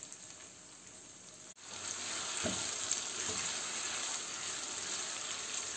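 Boneless chicken cubes sizzling as they fry in hot oil in a pan, stirred with a silicone spatula. The sizzle becomes louder and steady about a second and a half in.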